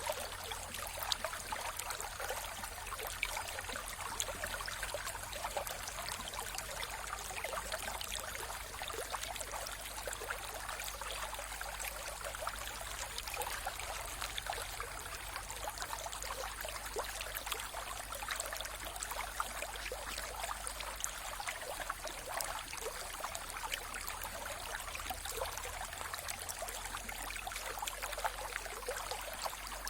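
Mountain river flowing: a steady rush of water dense with small splashes and bubbling.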